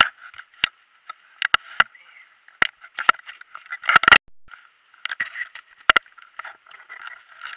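Close handling noise of rustling and crinkling, broken by irregular clicks and knocks as hands shift a fishing rod and fish against hard plastic, with a dense, loudest cluster of knocks about four seconds in.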